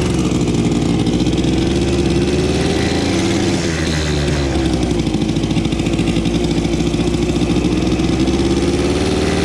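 Yamaha RS100's single-cylinder two-stroke engine running as the motorcycle is ridden along the road, its pitch dropping and then climbing again about four seconds in.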